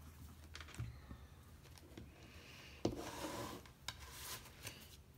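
A deck of tarot cards handled on a table: a sharp tap about three seconds in, then about a second of cards sliding and rubbing together, with a few shorter rubs after.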